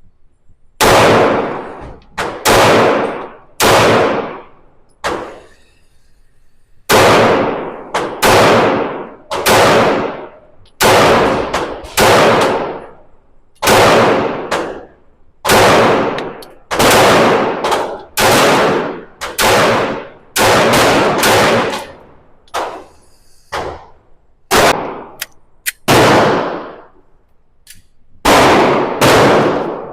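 SIG P365 X Macro 9mm pistol firing shot after shot at roughly one a second, with a couple of short pauses; each loud crack trails off in a brief echo.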